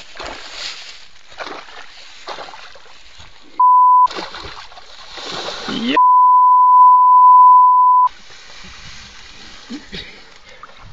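A steady 1 kHz censor bleep sounds twice, briefly about three and a half seconds in and again for about two seconds from six seconds in, over water splashing and sloshing as a person thrashes among reeds.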